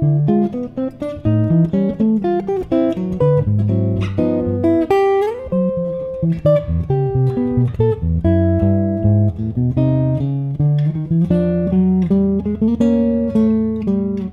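Solo acoustic guitar playing a contrapuntal jazz piece, picked bass notes and an upper melody line moving together, with a note slid up in pitch about five seconds in. Near the end a final chord rings and dies away.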